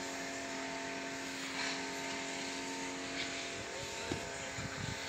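GAZelle light truck's engine idling steadily, a level hum with a few steady tones in it. A few soft low thumps come near the end.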